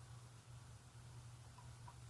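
Near silence: a steady low hum, with two faint ticks near the end.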